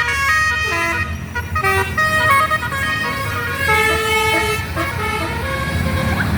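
Bus's Basuri telolet horn playing a tune of changing notes for about five seconds, over the low rumble of the bus engine.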